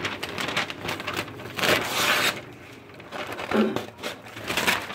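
Loose plastic sheeting crinkling and rustling in several bursts, the loudest about two seconds in.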